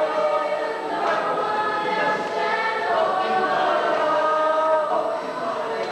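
A group of voices singing together, holding long notes that change about once a second, as song for Rotuman dance practice, heard on an old VHS home recording.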